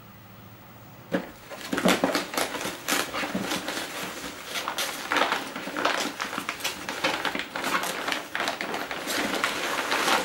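Plastic packaging bag rustling and crinkling as it is handled and pulled out of a box, starting about a second in with an irregular run of crackles.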